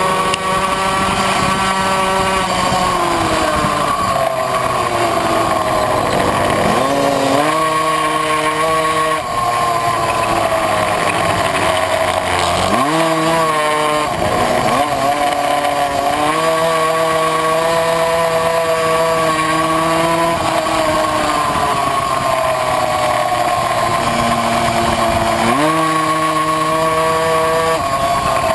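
Tuned 70cc two-stroke Puch Maxi racing moped engine, heard on board while racing. Its pitch sags gradually through the corners and climbs sharply three times as the bike pulls out of them.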